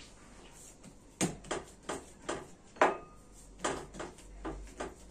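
Hands pressing and patting a ball of pizza dough flat on a wooden tabletop: a run of short knocks, about two or three a second, starting about a second in.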